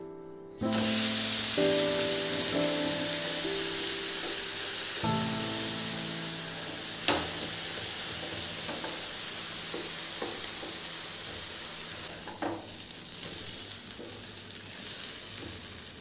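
An uttapam flipped topping-side down onto a hot tawa, the onions and tomatoes sizzling in oil: a loud hiss starts suddenly about half a second in and slowly fades. A few sharp clicks of the spatula against the pan come later.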